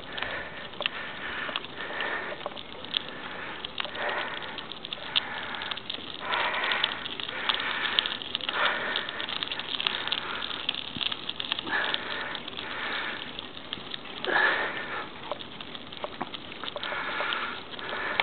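A cyclist's heavy breathing close to the microphone, a breath every second or two, over a steady hiss of wind and road noise.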